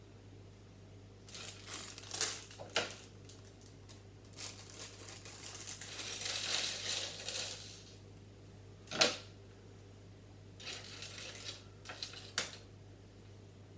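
Small plastic Lego pieces clicking and clattering on a tabletop as they are handled and sorted. A few sharp clicks stand out, with a longer spell of rattling and rustling in the middle.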